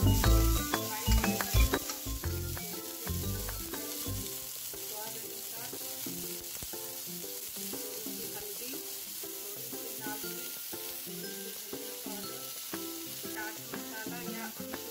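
Chopped onion and tomato sizzling in hot oil in a kadai. A spatula stirs and knocks against the pan during the first few seconds, then the frying goes on evenly. Light background music plays throughout.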